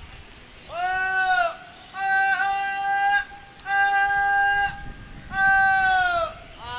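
A person's long, high-pitched calls to flying pigeons: four drawn-out held notes of about a second each, with short breaks between them.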